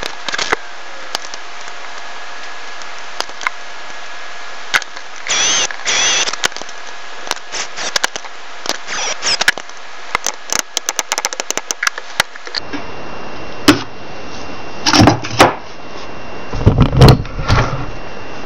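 Small metal clicks and clinks of guitar tuner hardware being handled and fitted to a headstock, with two short squeaky scrapes about five seconds in, over a steady hiss. In the last few seconds come heavier knocks and bumps as the guitar neck is moved about on a wooden board.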